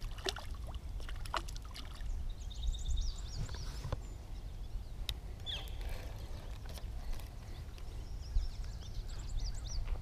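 Outdoor creek-bank ambience: a low wind rumble on the microphone, a few light clicks from handling a spinning rod and reel, and small birds chirping faintly in short bursts.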